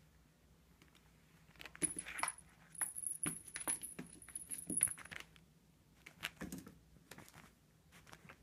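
A kitten batting a small metallic-jingling toy across a tile floor: a flurry of high jingling with clicks and taps for about three seconds, then a few more scattered taps about six seconds in.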